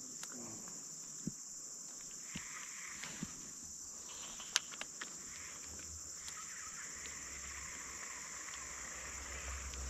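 Steady high insect drone of the forest, with a few short sharp clicks scattered through it; a low rumble comes in and grows near the end.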